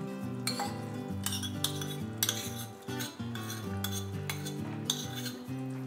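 Metal spoon scraping and clinking against a ceramic bowl as thick tomato puree is scraped out, several sharp clinks at irregular intervals, with background music.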